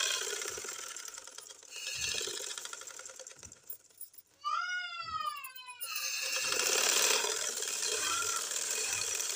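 Domestic sewing machine stitching a trim strip onto cloth, running in stretches of a second or two with short pauses between them. About halfway through, a brief high-pitched cry that rises and then falls sounds over it.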